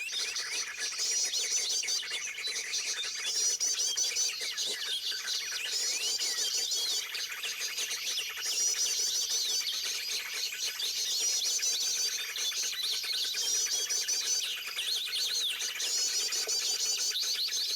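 Songbirds singing: one quick, high warbled phrase repeats about every two seconds, with other birds' short chirps scattered among it.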